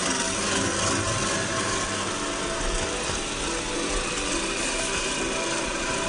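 Traxxas TRX-4 RC crawler's electric motor and geared drivetrain whining steadily as it crawls.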